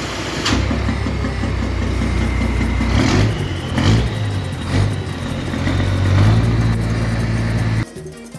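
Scania 340 truck's diesel engine running through an open straight exhaust with a 4½-inch side pipe, revved in several surges, the sound cutting off suddenly near the end.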